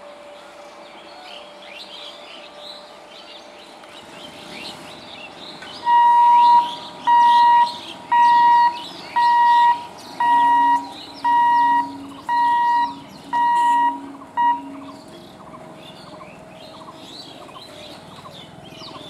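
An electronic warning beeper sounds about eight steady, evenly spaced beeps, a little under one a second, over birds chirping.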